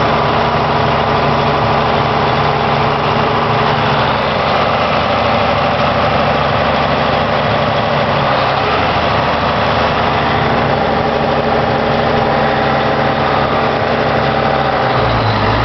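Diesel engine of a Challenger track tractor running steadily, heard from inside the cab.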